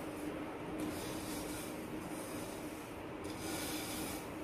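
Roasted semolina (rava) being scraped out of a nonstick pan with a silicone spatula and poured into sugar syrup in a kadai: a steady rasping, sliding sound of dry grains on the pan.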